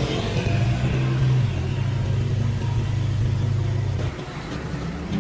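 A motor vehicle's engine running close by with a steady low hum and a hiss at the start, the hum dropping away suddenly about four seconds in.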